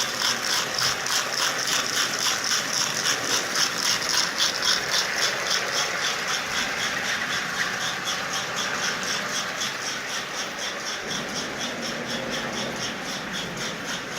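Lionel Sound of Power mechanical tender chuffing: steel ball bearings are lifted by paddles inside a hollow disc and dropped back, giving a rhythmic rattling beat several times a second. The disc is driven through a red rubber band standing in for the broken belt, rubbing on the center rail. A steady mechanical running noise sits underneath, and the beat eases off somewhat in the second half.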